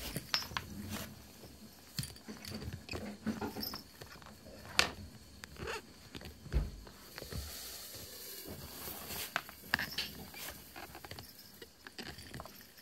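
Toy poodle puppy chewing and gnawing on a plush toy, with scattered small clicks and scuffles. There is a sharper click a little under five seconds in and a soft thump soon after.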